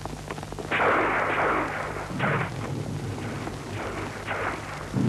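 Battle sound effects on a war-film soundtrack: a loud blast about a second in, then another shortly after and several smaller shots and blasts.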